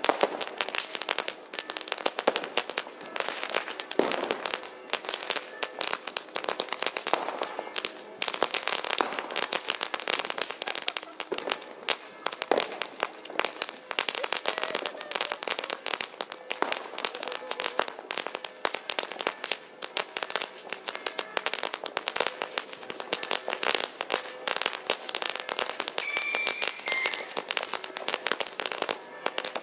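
Firecrackers and fireworks going off at close range in rapid, overlapping succession: a dense, unbroken crackle of sharp bangs and pops.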